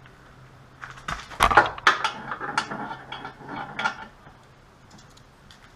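Metal clinking, knocking and scraping as a split exhaust flange repair clamp is worked onto a car's exhaust downpipe, in a cluster of sharp knocks from about one to four seconds in.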